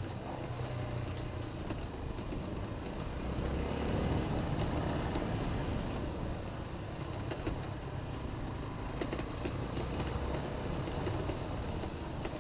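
Honda XR250 trail motorcycle's single-cylinder four-stroke engine running, swelling louder about three to five seconds in.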